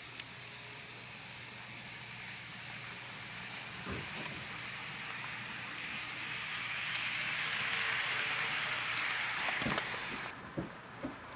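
N-gauge model train, a TOMIX KiHa 81 series set, running on the track: a steady hissing whirr of its motor and wheels on the rails that grows louder as it nears, then cuts off abruptly about ten seconds in, followed by a few faint clicks.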